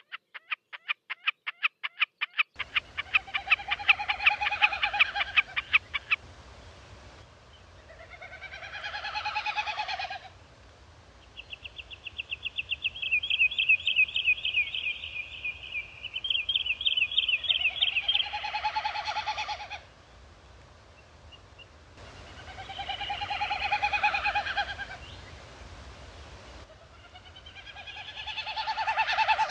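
Wilson's snipe winnowing: a pulsing, hollow hu-hu-hu made by air through the outer tail feathers in its display flight. Each one swells and fades over two to three seconds, five times. A fast, even run of sharp call notes comes at the start and another in the middle.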